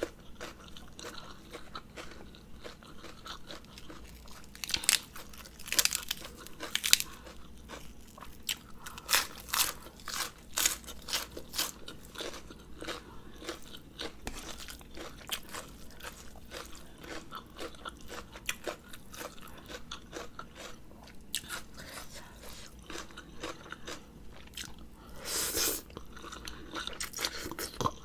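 Close-miked chewing and crunching of a mouthful of food, irregular bites and chews coming in clusters. There is a longer hissing burst near the end.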